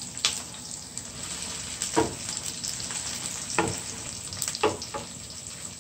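Chopped onion and scallion sizzling in hot oil in a frying pan as they sauté toward translucent, a steady hiss. A few short knocks of a stirring utensil against the pan come at intervals.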